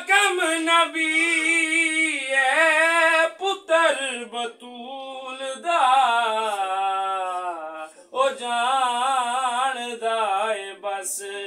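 A man singing a qasida unaccompanied, holding long notes with wavering ornaments, in phrases that break briefly about four seconds and eight seconds in.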